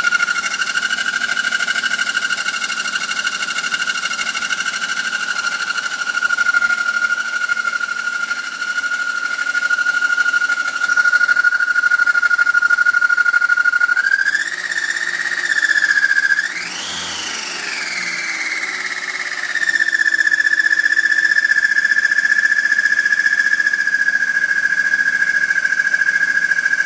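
BMW E39's M52B28 2.8-litre straight-six running with a steady high-pitched grinding whine over the engine. About two-thirds through the whine sweeps up and back down as the engine is briefly revved, then holds steady again; the owner has found it unchanged with the accessory drive belt removed.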